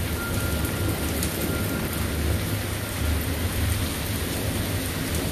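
Steady rain falling, with a low rolling rumble of thunder underneath.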